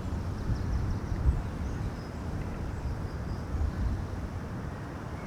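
Outdoor park ambience: a steady low rumble of wind on the microphone, with a few faint, short, high chirps.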